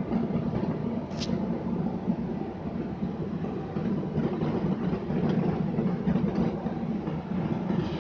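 Copeland ZR72 scroll compressor running with a steady, rough drone, and a brief high-pitched tick about a second in.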